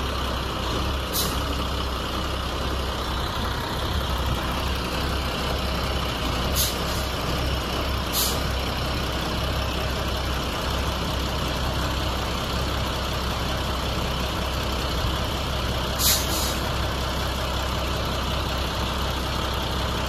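Wheel loader's diesel engine running steadily as it carries a giant dump-truck tyre on its tyre handler, with several short hisses a few seconds apart.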